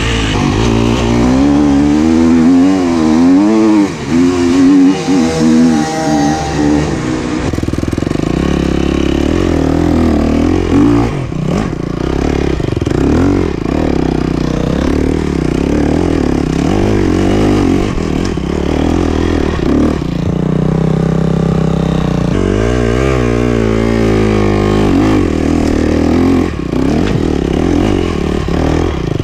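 KTM 250 SX-F dirt bike's single-cylinder four-stroke engine being ridden hard off-road, pulling up a steep hill climb. Its pitch rises and falls again and again with the throttle, most strongly in the first few seconds and again about two-thirds of the way through, with a steadier stretch in between.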